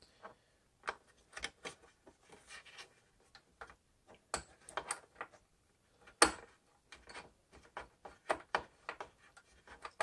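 Light, irregular clicks and taps of a screwdriver and fingers working at the CPU heatsink screws inside a desktop PC case, with one sharper click about six seconds in.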